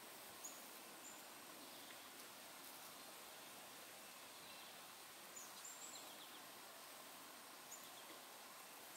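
Near silence: faint outdoor ambience hiss with a few brief, very high chirps, a small cluster of them around the middle.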